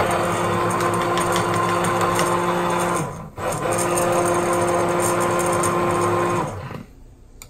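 Handheld immersion blender running in a measuring cup of water and vinegar, blending in xanthan gum: a steady motor hum that stops for a moment about three seconds in, starts again, and winds down shortly before the end.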